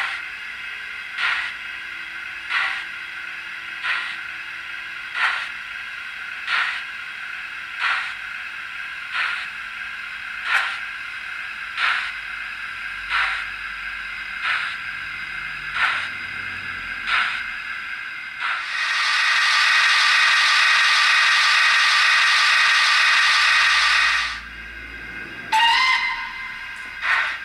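Sound decoder of a Hornby OO-gauge 'Lord Nelson' model locomotive playing through the model's small 28 mm loudspeaker: slow steam exhaust beats recorded from the preserved four-cylinder Lord Nelson (eight beats to a wheel revolution), about one every 1.3 seconds over a steady hiss. About two-thirds of the way in a loud steady hiss of steam runs for about six seconds, and a short rising whistle sounds near the end.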